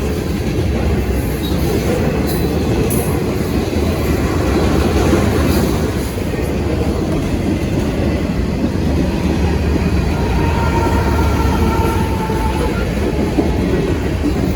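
Freight train passing close by: a steady rumble of railcars rolling on the rails, with a faint, brief wheel squeal about ten seconds in.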